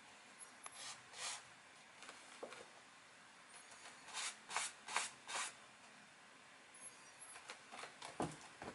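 Short scratching and scraping sounds from a cat's paws moving on a plastic toilet seat, with a run of four quick strokes about four seconds in, then a dull thump near the end as it jumps down off the toilet.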